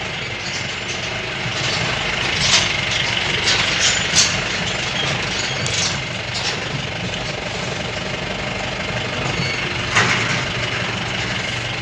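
Pickup truck engine running on the move, with a steady hum and road noise. A few sharp knocks or rattles come through, the loudest about two and four seconds in and again near the end.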